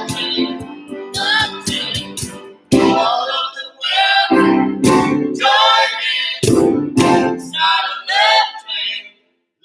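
Music: a voice singing a song phrase by phrase over instrumental accompaniment.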